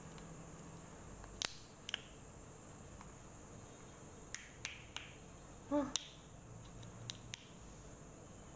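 Sharp plastic clicks and ticks, a few at a time, as the cap of a small plastic milk bottle is twisted and worked open by hand, with a short hummed vocal sound about six seconds in.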